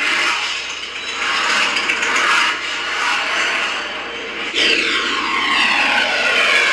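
Electronic rocket-power sound effect played by a Toy Story toy: a steady rushing jet-like blast, then, about four and a half seconds in, a falling whistling glide over the rush.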